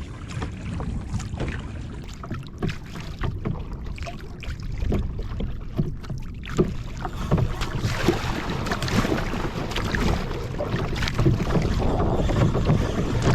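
Water splashing and lapping against a Stealth Profisha 475 fishing kayak's hull as it moves over the sea, with wind rumbling on the microphone. It gets louder about halfway through.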